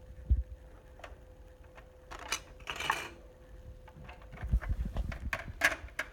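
Light taps and knocks of a pencil and hand on a paper colouring sheet lying on a table, with a short scratchy rubbing sound about three seconds in. A few low handling thumps come near the start and again after four seconds, over a faint steady hum.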